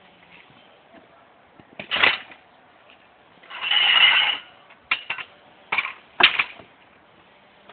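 Scattered knocks and clicks as a person handles and climbs onto a two-stroke dirt bike standing on its stand, with a brief louder rasp about four seconds in. The engine is not yet running.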